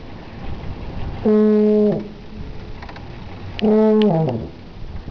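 Helicon, the coiled marching tuba, blown in two held notes: one about a second in, the other near four seconds in, which sags in pitch as it ends. A low, steady rumble fills the gaps between the notes.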